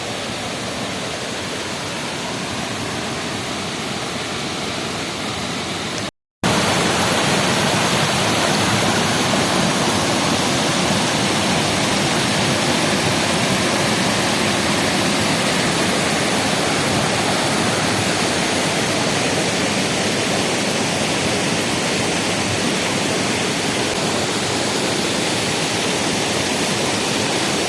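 Chilanthiyar waterfall rushing in a steady, even roar of falling water. About six seconds in it breaks off for a moment and comes back a little louder.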